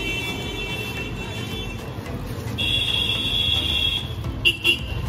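Street traffic rumbling, with vehicle horns sounding over it: two long held honks, then two short toots near the end.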